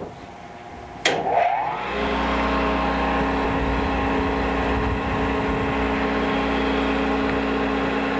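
Grinding-wheel motor of a Rush Model 132 drill grinder switched on about a second in, spinning up over about a second, then running at speed with a steady hum.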